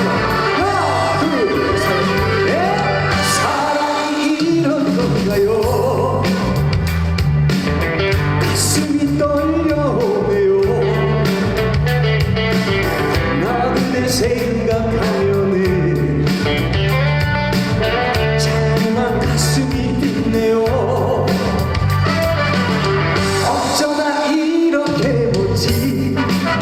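Korean trot song with a steady beat and a sung melody line.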